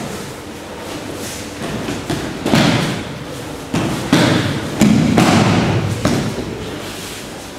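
Thumps of bodies landing on tatami mats as aikido partners are thrown and take breakfalls, several irregular impacts with a short ring of the hall after each, the strongest about two and a half, four and five seconds in.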